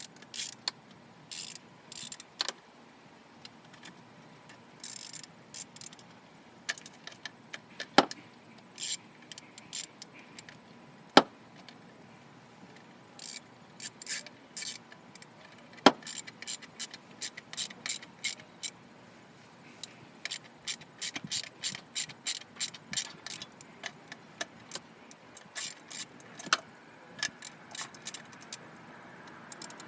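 Ratchet wrench clicking in quick runs of short ticks as small screws on the distributor's ignition rotor are tightened, with a few louder single clicks between.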